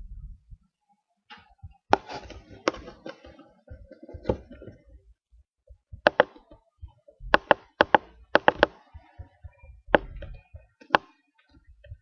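Irregular sharp knocks and taps, a dozen or so, some coming in quick runs of two or three.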